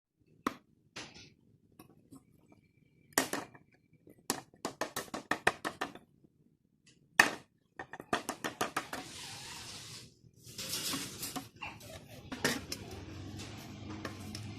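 Hard objects being handled: sharp clicks, knocks and clinks, some in quick runs of about four or five a second, with two short stretches of hiss in the second half.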